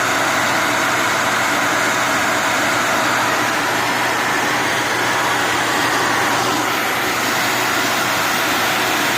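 Dyson Ball Multi Floor 2 upright vacuum cleaner running steadily at full suction: an even motor and airflow noise with a faint steady whine.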